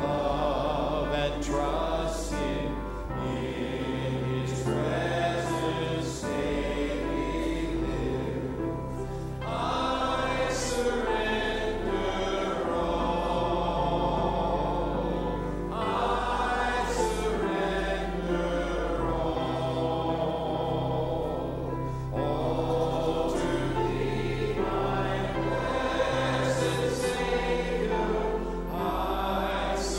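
A group of voices singing a slow hymn over instrumental accompaniment with sustained low notes, in phrases of about six seconds each.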